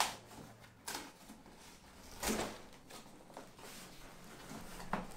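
A cardboard shipping box being opened by hand: scratchy rubbing of the cardboard and tape with a few short, sharp knocks, the loudest just after two seconds and another near the end.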